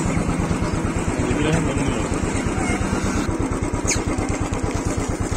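Motorcycle engine idling with a steady, rapid low putter. A short, high, falling chirp sounds about four seconds in.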